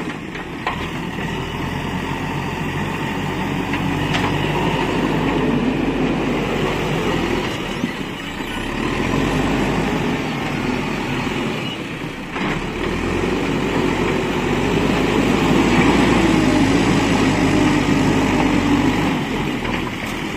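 JCB 4DX backhoe loader's diesel engine running under work, its sound swelling and dipping every few seconds as the load changes.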